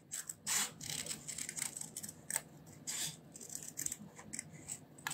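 Small craft scissors snipping around a stamped paper image: a series of short, irregular snips as the paper is turned against the blades.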